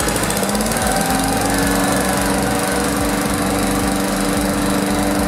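Briggs & Stratton single-cylinder 3.75 hp walk-behind lawn mower engine running steadily at speed, with no one touching it. It is running again on a newly replaced ignition coil.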